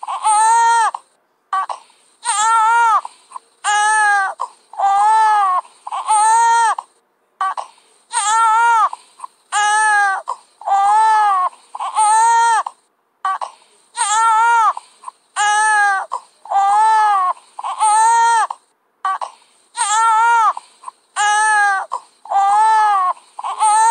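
Infant crying hard in a steady run of short wails, about one a second, each rising and falling in pitch with a quick breath between.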